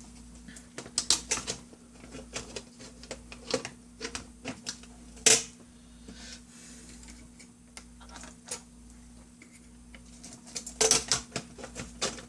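Small plastic and metal laptop parts clicking and knocking as they are handled and worked into place. The clicks and taps come irregularly, with one louder snap about five seconds in and a quick cluster near the end.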